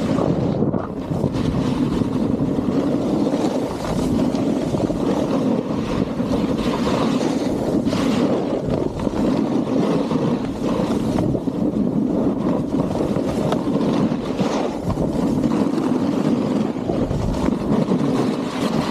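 A snowboard running and carving over packed snow, a steady scraping hiss of the base and edges, mixed with wind rushing over the microphone. It grows briefly louder and brighter on a couple of turns, near the middle and again a few seconds later.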